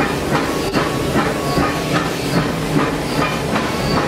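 Narrow-gauge steam locomotive running, heard from its cab: a steady steam hiss under a regular beat of about two and a half strokes a second.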